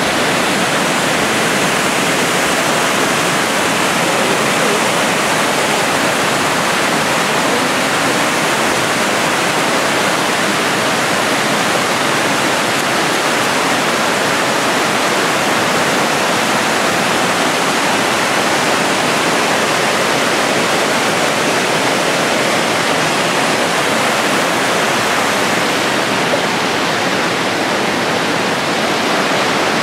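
Creek rushing over rocks in white-water rapids: a loud, steady wash of water.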